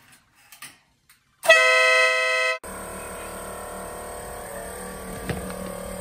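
A horn gives one loud, steady blast of about a second, a chord of several tones that cuts off suddenly. A quieter steady mechanical hum follows.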